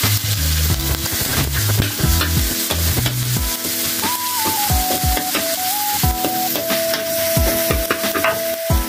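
Chopped chillies and aromatics sizzling in hot oil in a steel wok, stirred and pushed around with a metal wok ladle.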